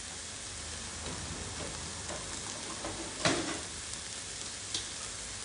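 Chopped onion, garlic and red bell pepper sizzling steadily as they sauté toward golden brown in a pan. A single sharp knock about three seconds in, and a faint click near the end.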